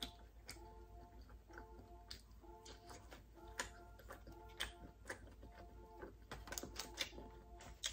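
Quiet eating sounds: scattered soft clicks and smacks of chewing and of fingers pulling apart a sauced chicken wing, over faint background music.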